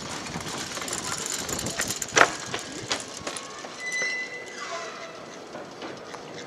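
Outdoor city ambience by the water with scattered knocks and one sharp tap about two seconds in, and a brief high steady tone about four seconds in.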